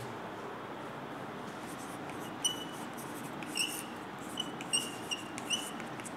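Chalk writing on a blackboard: a run of short scratchy strokes starting about two seconds in, several of them with a thin high squeak.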